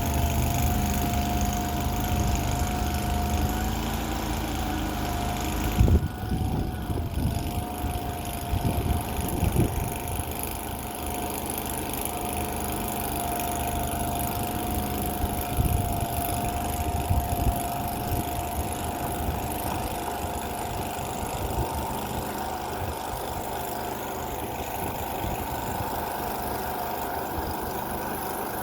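Mini skid steer's engine running steadily as the machine drives, with a steady high whine over it and a sharp thump about six seconds in.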